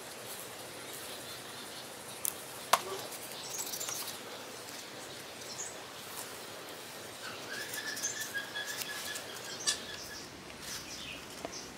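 Outdoor background with faint bird chirps over a steady hiss, broken by light clicks and taps from hands working at a plastic crate, one sharp click about three seconds in. A steady high note is held for about two seconds after the middle.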